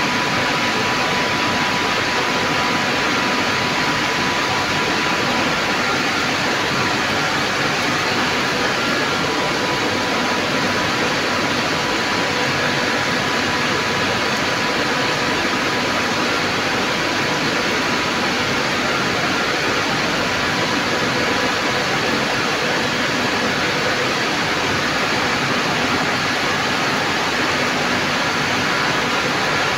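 Reverse-osmosis plant machinery running at full flow: a loud, steady, even rush of pump and water noise with a faint steady hum running through it.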